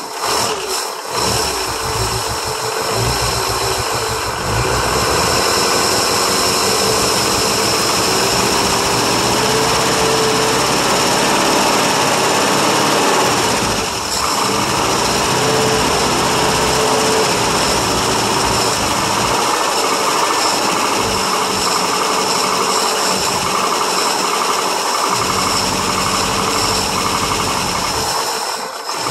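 International 392 V8 running steadily with its open four-barrel carburetor, at its first start after decades of sitting. It dips briefly about halfway through and again near the end.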